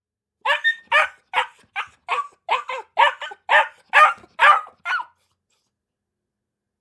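A dog barking: a quick run of about eleven short barks, roughly two a second, that stops about five seconds in.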